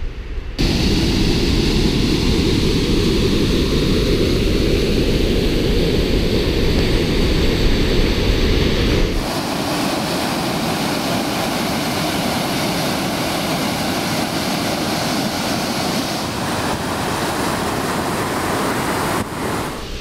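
Steady rush of fast-flowing stream or waterfall water, with wind buffeting the microphone in the first half; the low rumble drops away about halfway through.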